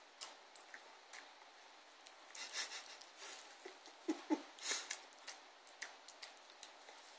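Small dog licking a man's lips and face: quiet wet licking and smacking clicks, with a burst of louder smacks a little after four seconds in.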